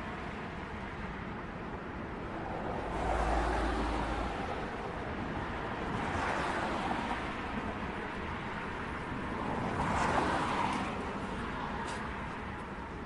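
City street traffic: a steady wash of traffic noise with vehicles passing, swelling about three seconds in (with a deep rumble), again around six seconds, and again about ten seconds in.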